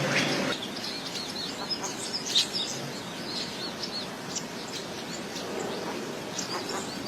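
A group of small birds chirping, with many short high-pitched calls overlapping and one louder call about two and a half seconds in. A low background noise cuts off about half a second in.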